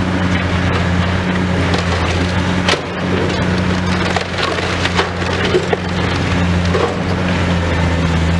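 Demolition excavator's engine running steadily while building material cracks and splinters as it is broken up, with sharper cracks about three and five seconds in.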